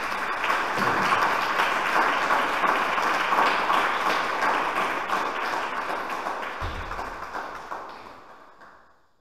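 Audience applauding, a dense, steady clapping that dies away over the last second or so.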